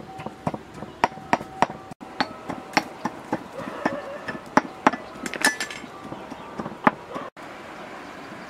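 Irregular sharp knocks and clinks of food being worked by hand at a wooden table, with a few short chicken clucks; near the end they give way to a steady outdoor hiss.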